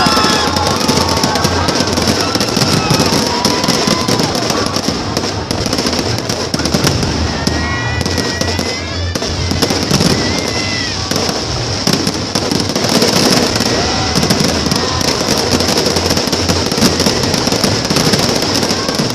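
Fireworks display: a dense, continuous barrage of crackling and popping bursts, with a few faint gliding whistles about eight to nine seconds in.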